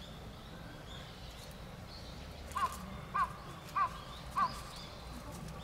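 A crow cawing four times in a steady rhythm, about 0.6 s apart, starting about two and a half seconds in. Faint small-bird chirps run behind it.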